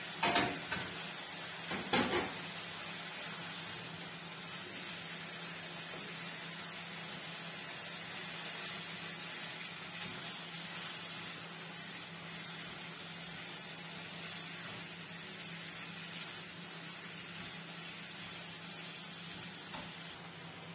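Chicken liver, sliced onion and garlic frying in oil in a nonstick pan, a steady sizzle. Two brief clatters of utensil on pan come near the start, as the pan is stirred.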